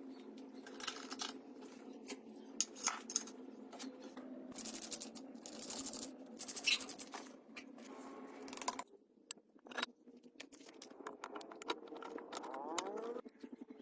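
Scraping and clicking of hand work, with short rasping strokes and sharp ticks over a steady hum that cuts off about nine seconds in.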